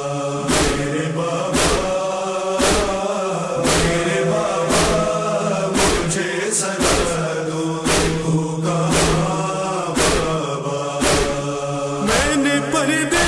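Wordless chanting voices of an Urdu noha lament over a steady low drone, with a thump keeping time about once a second.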